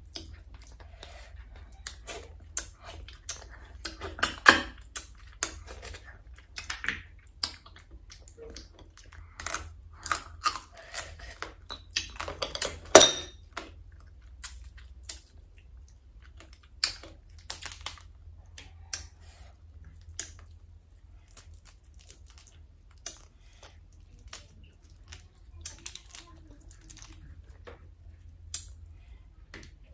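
Fried crab shell cracked and pulled apart by hand, with chewing: an uneven run of sharp cracks and clicks, the loudest about four and a half and thirteen seconds in.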